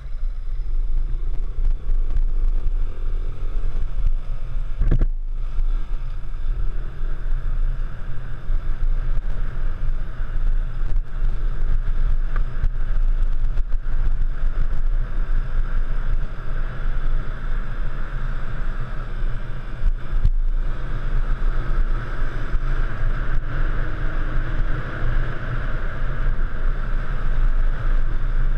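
Single-cylinder trail motorcycle engine running with the throttle rising and falling, over a heavy low rumble. The sound drops out briefly twice.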